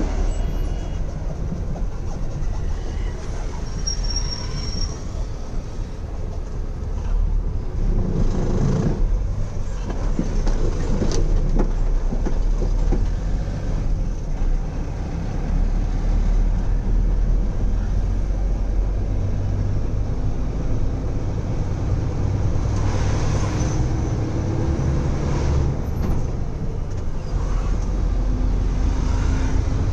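Inside a moving truck cab: the diesel engine's steady low drone under road noise, with the cab rattling and clattering as it goes.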